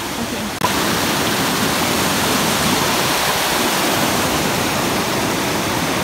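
Mountain creek rushing over rocks down a small waterfall: a steady, dense rush of water that steps up louder about half a second in.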